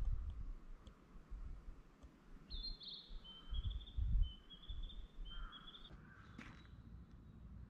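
A small songbird singing short, high, trilled phrases several times over. Low rumbling bumps on the microphone come at the start and around the middle, and there is a single sharp tick near the end.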